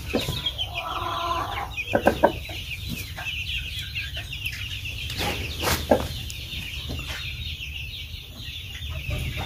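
Penned chickens clucking, with one louder call about a second in, over constant high cheeping from many chicks.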